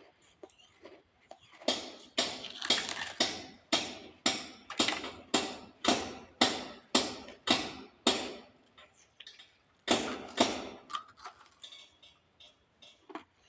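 A person chewing dry clay (mitti) close to the microphone: a steady run of sharp crunches about two a second, a pause, then two more crunches.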